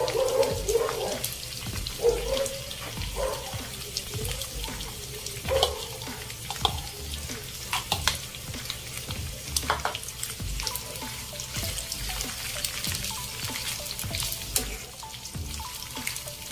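Sliced hot dog sausages sizzling in a frying pan. Chopped onion and green chile drop in, and a metal spoon clicks against the pan as they are stirred. Background music plays under it.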